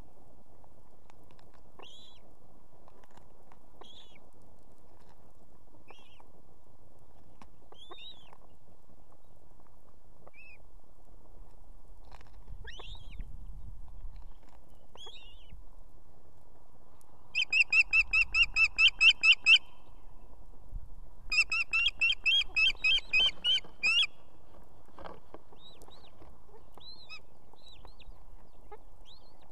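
Ospreys calling at the nest: soft, high chirps every couple of seconds, then two loud runs of rapid, sharp piping calls a little past halfway, each lasting two to three seconds at about four or five calls a second.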